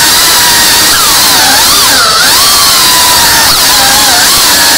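FPV quadcopter's brushless motors and propellers whining loudly over a rush of prop wash, the pitch swooping up and down again and again as the throttle changes through quick manoeuvres.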